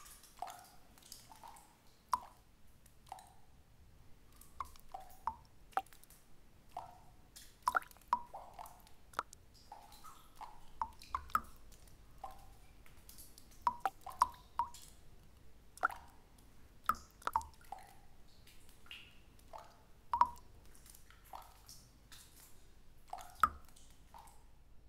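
Water drops falling into a still pool of water, each landing with a short plink, irregularly, about one or two a second.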